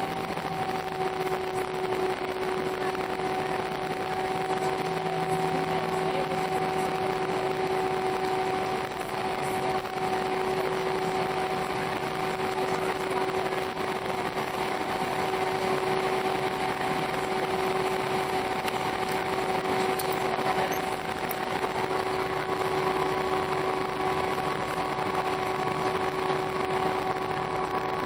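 Airbus A319 cabin noise: a steady rush of engine and airflow noise with a constant two-note hum. A third, higher hum joins about three-quarters of the way through.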